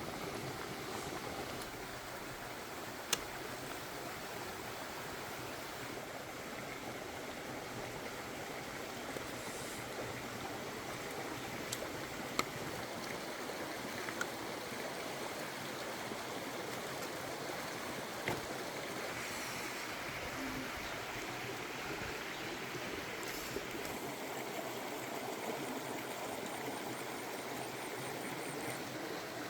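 Stream water running over rocks, a steady rushing, with a few sharp clicks.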